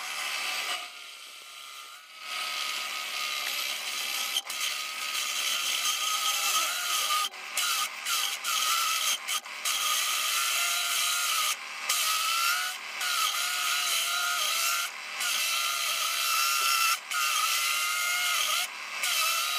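Benchtop drill press driving a metal-cutting hole saw through a sheet-steel door: a steady scraping cut with a wavering, squealing whine. It starts about two seconds in and breaks off in short pauses every second or two.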